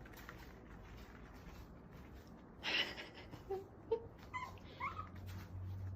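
A dog whimpering softly: a few short, faint whines in the second half, two of them rising in pitch, after a brief rustle.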